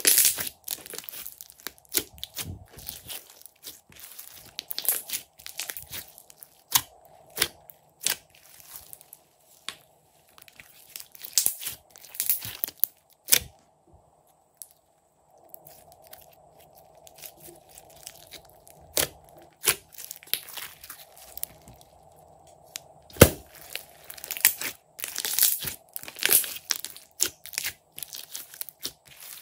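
Hands squeezing, pinching and stretching glossy slime mixed with small foam beads: irregular sticky pops, clicks and crackles, coming in clusters with a short quiet pause near the middle.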